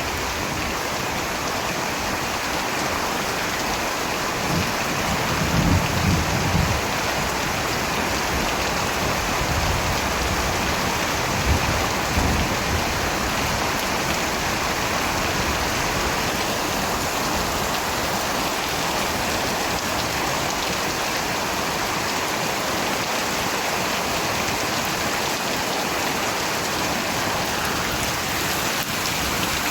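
Steady, even rain, with low rumbles of thunder about five seconds in and again around twelve seconds.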